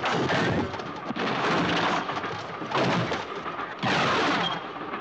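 Hand-to-hand fight in a train compartment: loud thuds and scuffling come in repeated surges about a second apart, over the rumble of the moving train.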